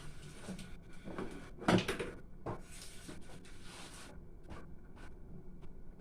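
A few light knocks and clunks of cookware being handled, the loudest about two seconds in, with a soft hiss under the first few seconds.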